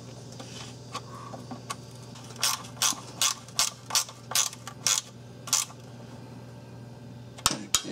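Ratcheting wrench clicking as a 10 mm bolt is tightened, about nine quick ratchet strokes at two to three a second from about two and a half seconds in, with a couple of sharp clicks near the end.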